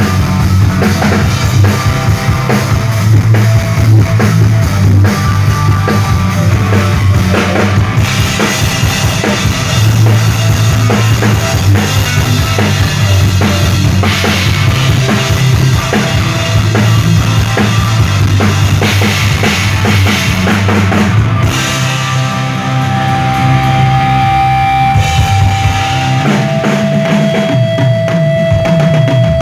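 Rock band playing through a PA at a sound check, the drum kit's kick and snare hitting hard over a steady bass line. Past the two-thirds mark the drumming thins and a long held note rings out, stepping slightly lower a few seconds later.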